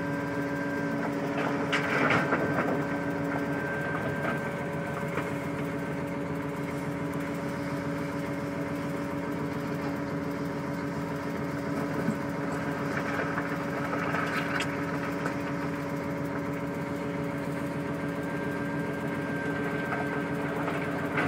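Diesel engine of heavy earthmoving equipment, an excavator or a rock truck, running at a steady speed with a steady whine. There are brief louder noisy spells about two seconds in and again about fourteen seconds in.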